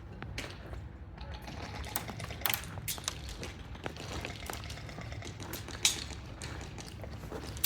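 Airsoft guns firing scattered single shots: irregular sharp clicks and cracks, a few louder than the rest, over a low rumble of body-mounted camera handling noise.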